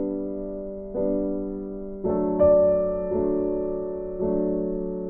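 Soft background piano music, chords struck about once a second and left to fade.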